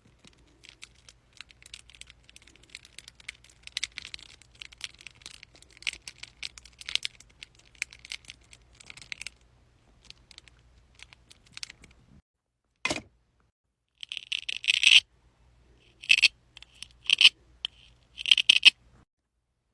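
Close-up crafting sounds: fine crinkling and crackling of material being handled, then several short, loud tearing rips in the second half.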